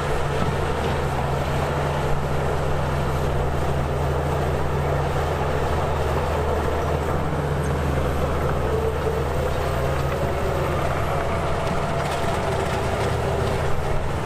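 Heavy diesel engine of earthmoving machinery running with a steady low drone.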